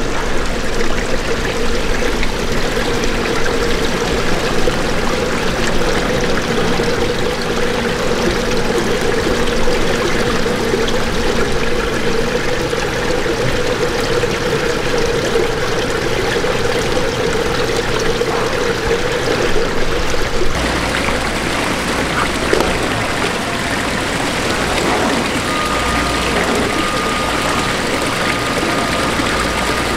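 Water pouring steadily from a pipe into a live-eel tank, a continuous rushing splash. A faint high steady tone joins in near the end.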